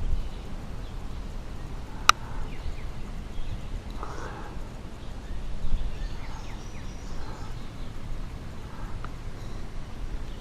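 Outdoor ambience while hiking: a low wind rumble on the microphone, scattered rustling footsteps, and one sharp click about two seconds in. Faint bird chirps come in toward the middle.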